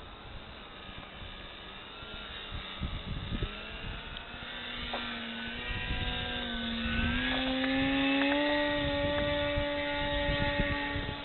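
Electric motor and propeller of a foam RC airplane whining, its pitch wavering, then climbing about halfway through and holding steady and louder at higher throttle. A gusty low rumble runs underneath.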